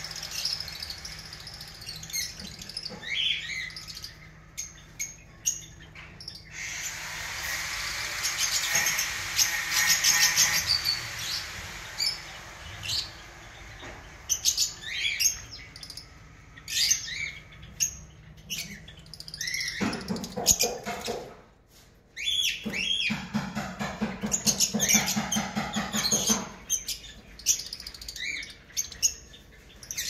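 Flock of Fischer's lovebirds chattering: many short, high chirps and squawks, with a louder, harsher stretch partway through.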